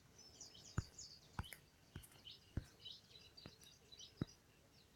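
Faint birdsong, short chirps high in pitch, over low background noise, with about six faint sharp clicks spaced roughly half a second to a second apart.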